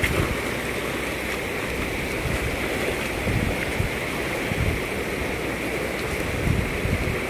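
Fast-flowing river water rushing steadily, with a cast net splashing into the current right at the start and a few dull low thumps later on.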